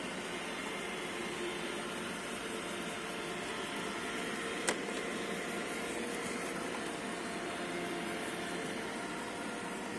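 iRobot Roomba e5 robot vacuum running with a steady whir, with a single sharp click about halfway through.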